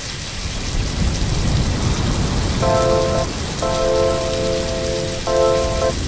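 Chicken pieces sautéing in hot oil in a wok, giving a steady sizzling hiss. Background music with long held notes comes in about two and a half seconds in and drops in and out.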